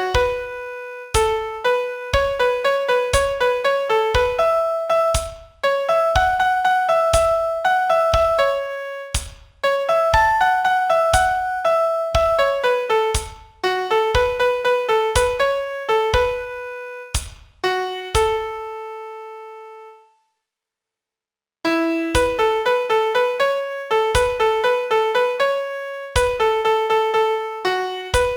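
Solo piano playing a song melody one note at a time in phrases, each note struck and dying away, with a silent pause of about a second and a half after the third phrase before the tune resumes.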